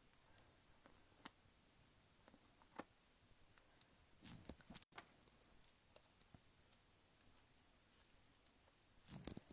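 Faint handling of paper-craft materials: scattered small clicks and paper rustling, with a slightly louder rustle about four seconds in and again near the end.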